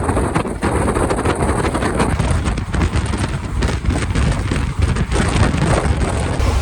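Passenger express train running at speed, heard from aboard a coach: a steady low rumble with irregular rattling clicks of wheels on rails, and wind rushing across the microphone.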